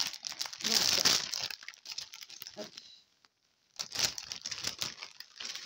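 Crinkly packaging being handled and rustled, in bursts that are loudest about a second in, with a pause shortly past the middle before more rustling.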